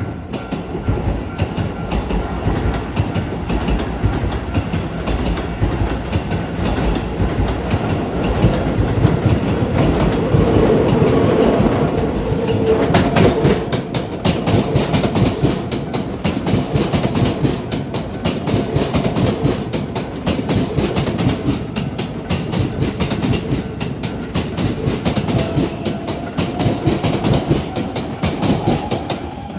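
Electric trains, a Chiba New Town Railway 9200 series and a Keisei AE-series Skyliner, running past at a level crossing. There is a steady rumble with rapid wheel clatter over the rail joints, loudest around ten seconds in.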